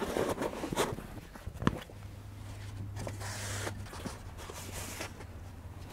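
Handling noises from fabric storage bins being put together and slid into a wooden drawer frame: a few light knocks and rustles in the first couple of seconds, then a steady low hum for about two seconds.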